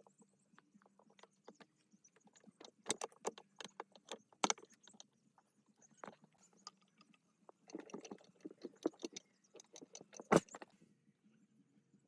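Irregular clicks and knocks, some in quick clusters, with one loudest knock near the end, over a faint low hum.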